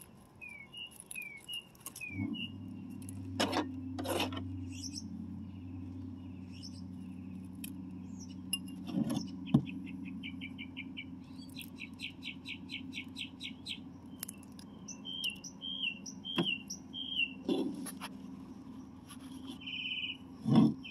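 Small birds chirping and trilling in repeated short calls, with a few knocks and clicks from handling a potted succulent as its dry leaves are pulled off. A low steady hum sets in about two seconds in.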